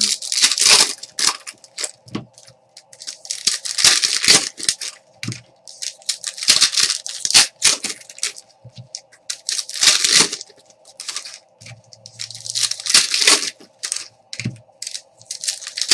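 Foil trading-card pack wrappers being torn open and crinkled by hand, in crackling bursts every few seconds, with the cards slid out between them.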